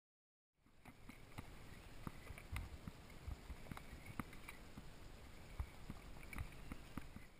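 Wind and sea noise aboard a boat, with irregular sharp knocks and clicks scattered through it. It starts about half a second in.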